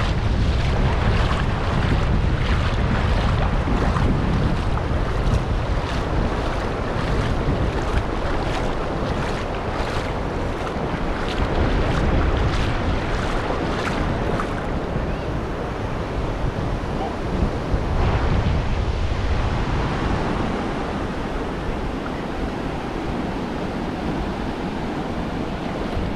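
Ocean surf washing onto the beach, with wind buffeting the microphone in a heavy low rumble.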